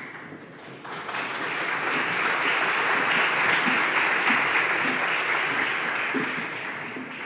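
Audience applauding, building up about a second in, holding, then tapering off near the end.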